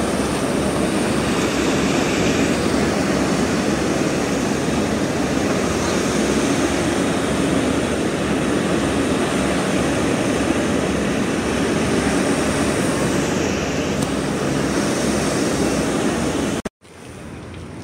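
Steady drone of a boat under way: low engine rumble mixed with rushing wind and water. It cuts off abruptly near the end, giving way to a quieter steady background.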